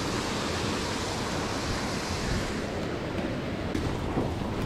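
Creek water rushing, a steady noise.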